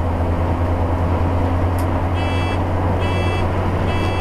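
Motorhome's Cummins ISL 8.9-litre inline-six diesel pulling under load at about 1,600 rpm in fifth gear: a steady low drone over road noise. From about halfway, a short electronic beep repeats about once a second, three times.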